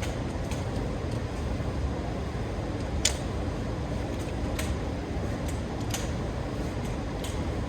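Nissan SR20DET engine idling with the AC on and the electric condenser fan running alongside the radiator fan: a steady hum and rush of air. A few light clicks break in now and then, the sharpest about three seconds in.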